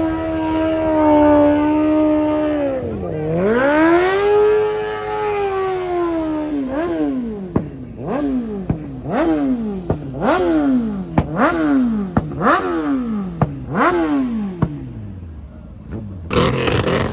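A performance engine held at high revs, dipping once and climbing back, then revved in about ten quick blips in a row, each rising sharply and falling away. A short burst of noise comes near the end.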